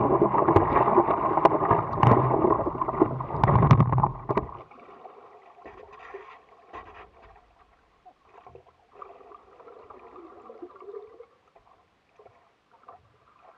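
Water splashing and sloshing around the nose of a stand-up paddleboard, close to the camera, with many small sharp splashes. About four and a half seconds in, the camera goes under water and the sound drops to a faint, muffled gurgling.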